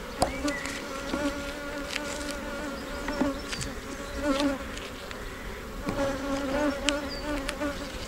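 Honey bees buzzing over an open hive: a steady, wavering hum. A few sharp clicks and scrapes come from a hive tool prying at the wooden frames.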